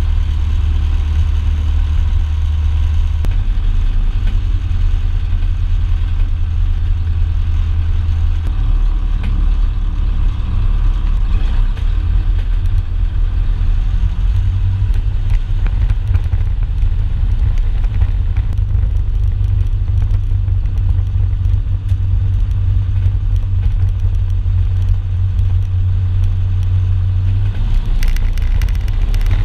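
Cessna 162 Skycatcher's Continental O-200 four-cylinder air-cooled engine running at low taxi power, heard from inside the cockpit as a steady low drone. Its speed shifts slightly a few times.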